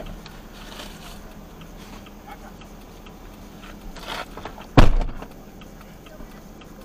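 A vehicle door shuts with a single heavy thump about five seconds in, after a brief rustle, over a steady low engine hum.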